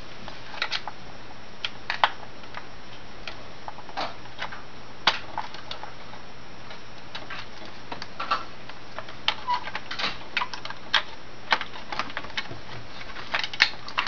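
Irregular light clicks and clacks of plastic wiring-harness connectors and control-board parts being handled and plugged back onto a dishwasher's electronic control board, thickest about two-thirds of the way through, over a faint steady hum.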